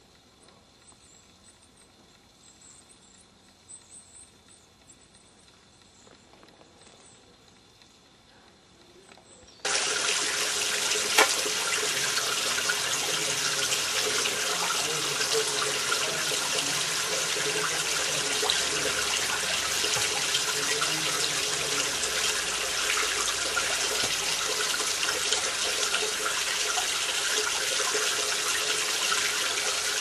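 Quiet for about the first ten seconds, then the steady rush of flowing water cuts in suddenly and runs on at an even level.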